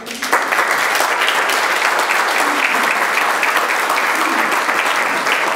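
Audience applauding, swelling quickly at the start and then holding steady.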